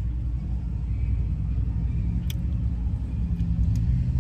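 Car engine idling, a steady low rumble heard from inside the cabin, with a single sharp click about two seconds in.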